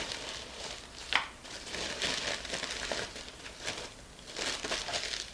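Packaging crinkling and rustling in irregular bursts as a parcel is unwrapped by hand, with a sharper crackle about a second in.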